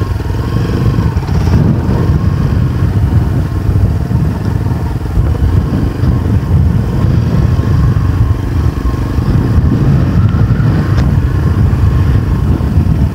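Motorcycle engine running steadily under load as the bike is ridden uphill over rough off-road ground.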